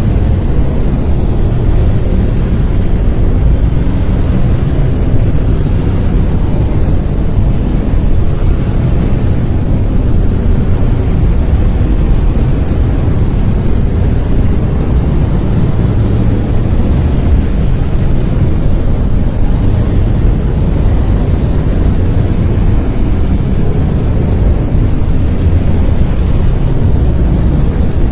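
Brown noise: a steady, loud rumbling hiss, strongest in the low end and falling away toward the highs, with no changes or events.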